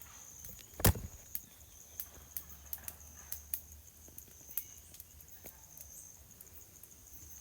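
Insects such as crickets keep up a steady high-pitched chirring. Scattered sharp clicks and crackles run under it, with one loud knock about a second in.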